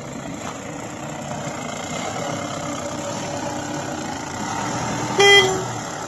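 Mahindra Bolero SUV's engine running as it crawls slowly down a rocky dirt track. A short horn toot sounds about five seconds in.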